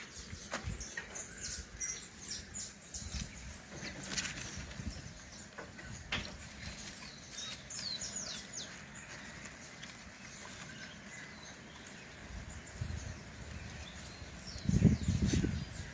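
Small birds chirping, many short, quick downward chirps scattered throughout. About a second before the end comes a brief low rumbling thump, louder than the birds.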